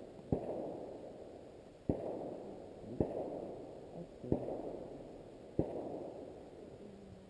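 Pieces of dry ice dropped one at a time into a part-filled plastic 2-liter bottle. Five sharp clunks come about a second apart, each followed by a rush of fizzing that fades over a second or so.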